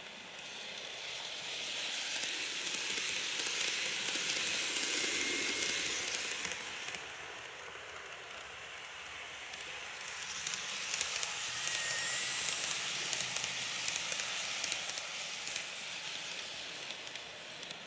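KATO N-scale model trains of the JR Kyushu 885 and 883 series running on plastic double track: a steady rushing hiss of wheels and motors that swells as the first train rolls past close by, dies down, then swells again as the second train passes, with a few light clicks at the rail joints.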